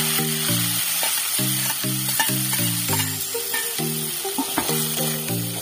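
Small fish sizzling as they fry in hot oil in a steel kadai over a wood fire: a dense, steady hiss, heard over background music with a repeating low melody.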